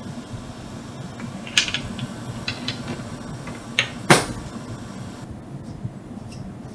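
A handful of sharp clicks and knocks over a steady low hum. The loudest is a single thump about four seconds in.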